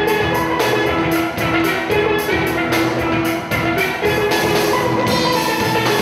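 Steel band music: steel pans playing a melody and chords over a steady drum-kit beat.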